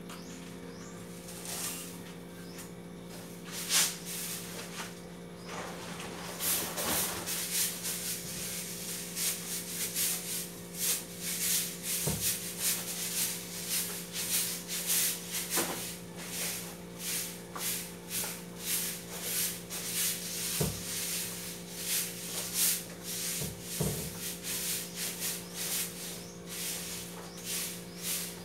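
Rapid, irregular rubbing and rustling strokes of hand cleaning at a kitchen counter, starting about six seconds in, with a few light knocks of items being set down, over a steady low hum.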